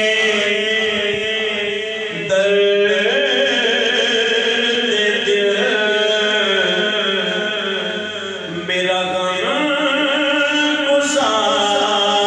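A man sings a naat (Urdu devotional poem) unaccompanied into a microphone. He holds long, drawn-out notes and moves between them with slow gliding ornaments before the words begin.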